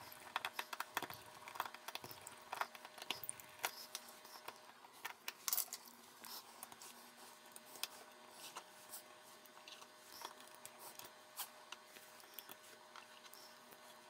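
Faint, scattered small clicks and taps of a precision screwdriver and tweezers working the tiny screws and metal bracket inside a Huawei Mate 20 Lite. The clicks come more often in the first half and thin out later.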